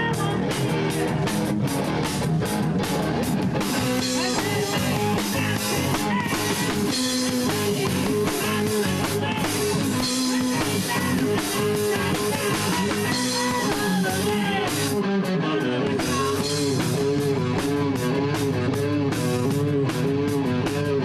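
A rock band playing live: an instrumental passage of guitar over a drum kit with no singing. About fifteen seconds in, the drums briefly thin out while the guitar carries on.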